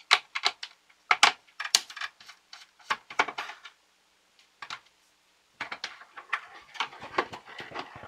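Quick clicks, taps and light plastic rattling as a small screwdriver and hands work a loosened circuit board free inside a hollow plastic toy pinball case. The clicks come in two flurries with a pause of about two seconds between them.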